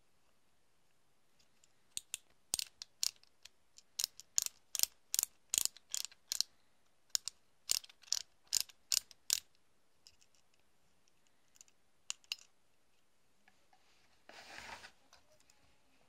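A run of sharp clicks, about two or three a second, from a handheld LED flashlight being worked in the hand, then a few scattered clicks and a short rub near the end.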